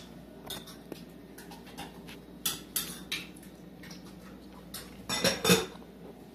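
Scattered light clicks and clinks of dishes and bowls handled on a kitchen counter. A louder cluster of knocks comes about five seconds in.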